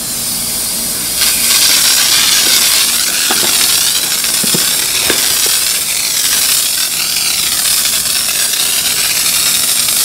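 Handheld electric disinfectant mist sprayer spraying sanitizer, a steady hiss that gets louder about a second in. A few faint knocks from handling the package come through around the middle.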